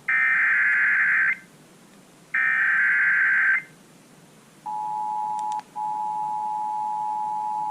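Emergency Alert System tones received over the radio: two one-second bursts of the warbling SAME digital header, a second apart, then the steady two-tone EAS attention signal starting about four and a half seconds in, with a short dropout about a second into it. The tones open a relayed severe thunderstorm warning.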